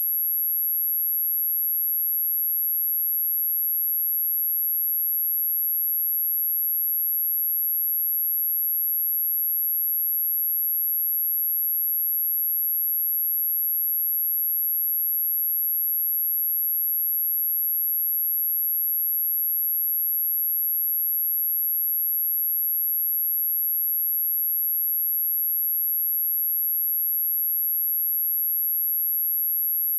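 Steady, unbroken high-pitched test tone: a pure 11616 Hz sine wave, held at one pitch and one level.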